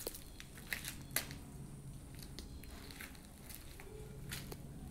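Footsteps crunching on grit over a bare concrete floor: a few irregular steps, roughly one a second.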